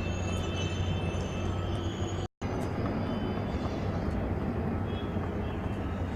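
Steady low rumbling noise with a hum underneath, cut off completely for a split second a little over two seconds in.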